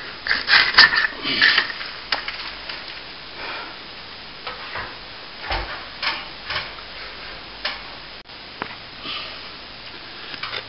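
A hand tool scraping and scratching at old plaster in short strokes, with a few light knocks. The strokes are thickest in the first couple of seconds, then come only now and then.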